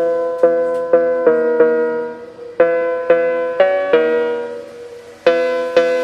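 Background music: a keyboard, piano-like, playing single notes one after another. Each note starts sharply and fades, and the melody hovers mostly around one pitch.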